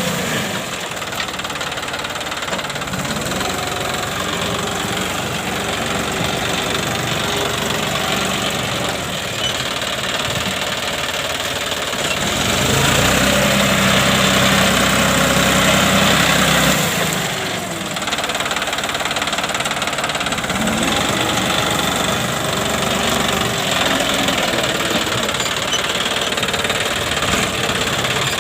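John Deere 5050D tractor's three-cylinder diesel engine running steadily. About halfway through it grows louder and fuller for some four seconds, then settles back.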